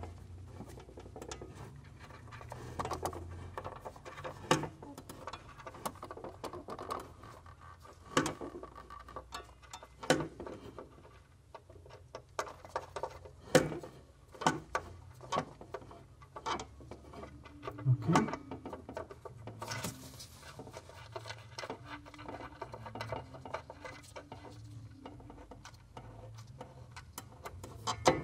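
Irregular small metallic clicks and taps of a hand spanner working the lock nut on the throttle pedal stop bolt of a Suzuki Samurai, with a few louder knocks about halfway through.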